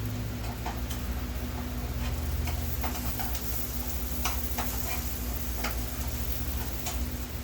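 Irregular light clicks and taps of small parts and tools being handled on a workbench, about a dozen spread unevenly, over a steady low electrical hum.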